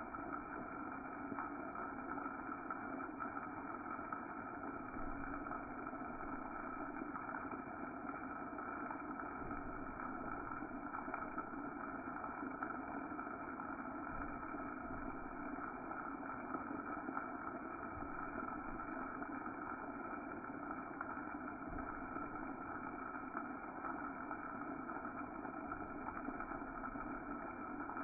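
High Sierra Half Dome shower head spraying steadily, a drenching cascade of large, heavy droplets falling without a break.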